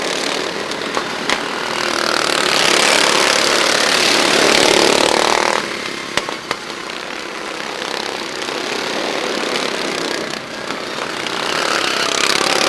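Racing lawn mower engines running, louder and higher for a few seconds from about two seconds in as a mower passes close, then dropping back sharply.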